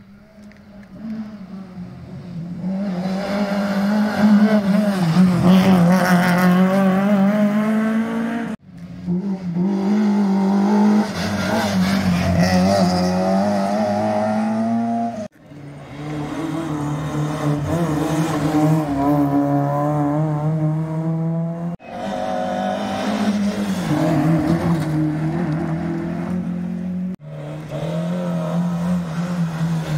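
Rally car engines running hard at high revs, one car after another. The first grows louder over the first few seconds as it approaches. The sound breaks off sharply and starts again four times, about every six or seven seconds.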